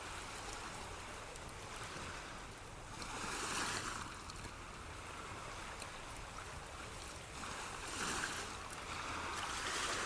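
Ocean-wave ambience for sleep and tinnitus masking: a steady soft hiss that swells louder three times, about three and a half, eight and ten seconds in, like waves washing in.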